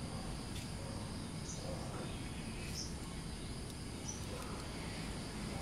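A pan of red agar-agar syrup simmering on the stove: a faint steady hiss with a few small, high pops from bubbles breaking.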